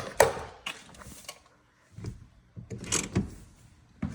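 A handful of separate mechanical clicks and knocks spread through about four seconds, from working the Toyota Sienna minivan's door and parking brake.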